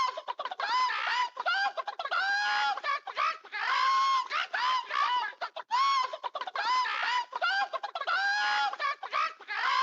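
Hens clucking steadily in a dense run of short calls. The same stretch repeats about every three seconds, as a looped sound effect.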